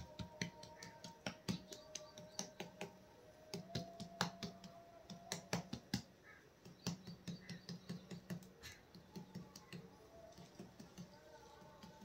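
Hands patting and pressing a dough lid onto a clay pot to seal it: light, irregular taps and clicks, coming in quick clusters.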